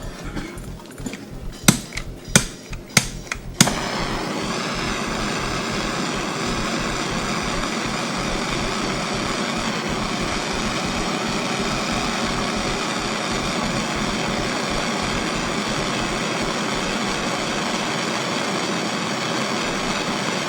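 A butane torch is clicked several times and lights, then burns with a steady hiss. It is heating spun Kanthal coil wire red hot to oxidize it.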